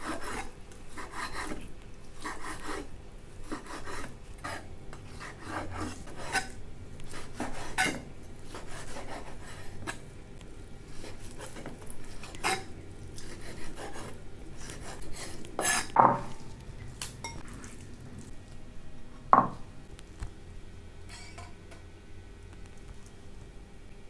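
Kitchen utensils clinking and scraping against dishes, in irregular knocks and rubs. Two louder clinks come past the middle, the second one ringing briefly.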